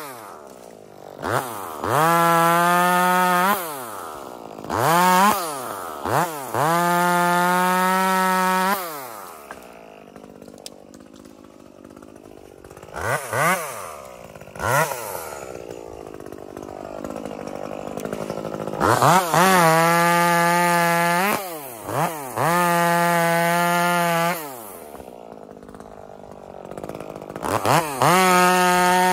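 Modified Echo 2511 top-handle chainsaw, a 25 cc two-stroke, revved to full throttle again and again. Each time its high, buzzing note climbs fast, holds steady at the top for one to two and a half seconds, and drops back to idle. Two quick throttle blips come in the middle of a longer stretch at idle.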